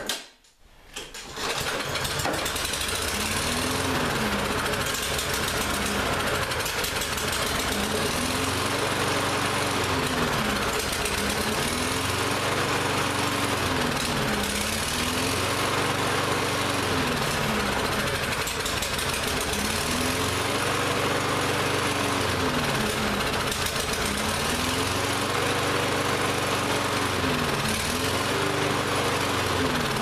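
Lawn-Boy push mower engine starting about a second in, then running rough and surging, its speed rising and falling every few seconds while it is fed starting fluid sprayed into the carburetor intake. The owner takes the rough running for a carburetor that is still a little gummed up and starving the engine of fuel.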